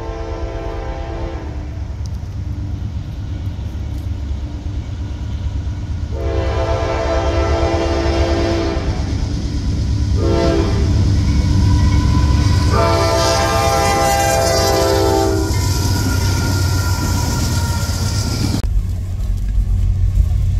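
Approaching diesel freight locomotive sounding its multi-chime air horn in four blasts, long, long, short, long, the standard signal for a grade crossing, over the steady rumble of the train. A different locomotive's engine rumble takes over near the end.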